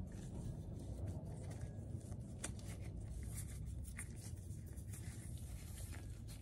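Faint handling sounds: gloved hands fitting a rubber O-ring onto a steel kingpin, with a few light clicks and rubs over a low steady hum.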